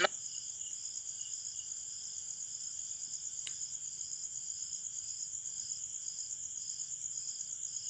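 Insects chirping in the background: a steady high trill with an even, pulsing chirp over it. A faint click about three and a half seconds in.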